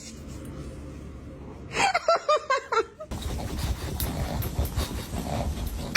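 A person laughing, a quick run of short 'ha' bursts about two seconds in. After that a steady background hiss with a few faint clicks follows.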